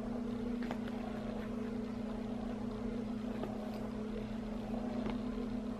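Steady electric motor hum of a Rock 'n Play baby sleeper, one unchanging low tone, with a few faint light clicks over it.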